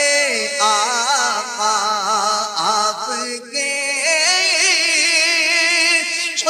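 A voice singing a naat (devotional Urdu kalam) in long drawn-out notes, the pitch sliding and wavering through melismatic runs, with a short break about three and a half seconds in.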